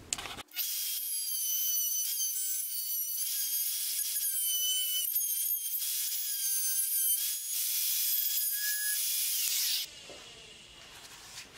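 Bosch plunge router with a template bit running and routing out a blind pocket in plywood: a steady high whine whose pitch wavers slightly as it cuts, stopping abruptly near the end.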